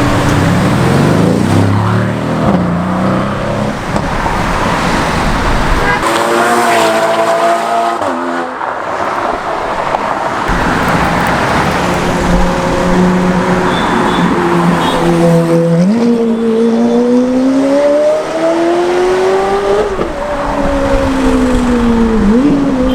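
Car engines running in road traffic. One engine's pitch climbs steadily about two-thirds of the way through as it accelerates, drops, then rises again briefly near the end.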